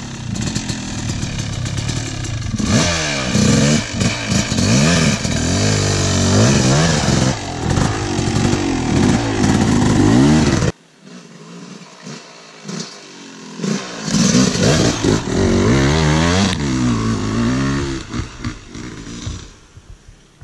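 Dirt bike engine revving up and down over and over as it climbs a rough trail, loud and close for the first half. About ten seconds in it drops off abruptly, then is heard farther off, still revving up and down, and fades near the end.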